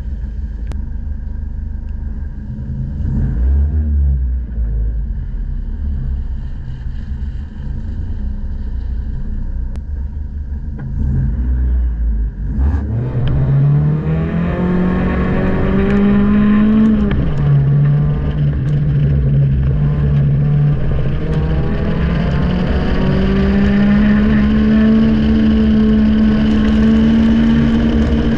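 Honda Civic's four-cylinder engine heard from inside the cabin: idling low for about twelve seconds, then pulling away and revving up hard at the start of an autocross run. Its pitch drops once at an upshift and climbs again, holding high revs near the end.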